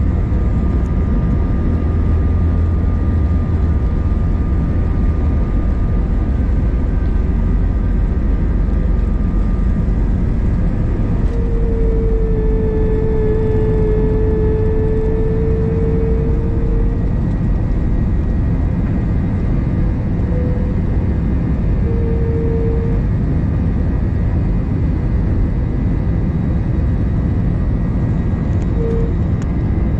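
Cabin noise inside a jet airliner taking off: the engines run at takeoff power with a steady loud roar, and the low runway rumble is heaviest in the first few seconds and then eases. About eleven seconds in a steady whine comes in for several seconds, with shorter repeats of it later.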